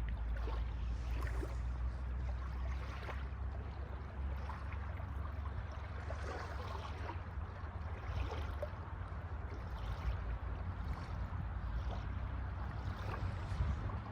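Sea water splashing and lapping irregularly, over a steady low rumble.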